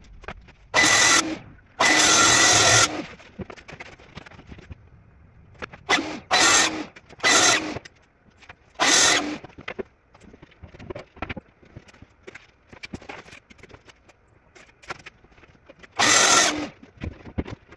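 Festool plunge-cut track saw running and cutting plywood along its guide rail in seven short bursts, each under a second, the longest about a second long. Light knocks and clicks of the rail and boards being handled come between them.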